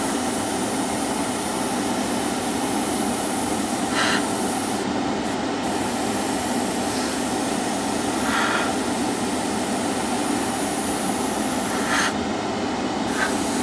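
Airbrush spraying a mist coat of thinned paint, a steady airy hiss over the drone of a spray-booth extractor fan, swelling briefly a few times.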